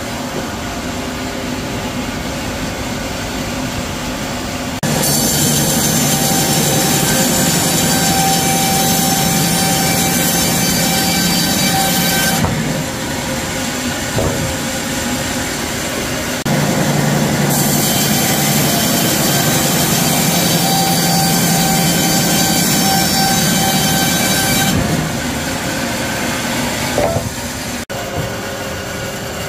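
Sawmill saw cutting cedar timber. The machine runs steadily and goes louder and higher with a hissing whine during two cuts of about seven to eight seconds each, then drops back between them. A single knock comes near the end.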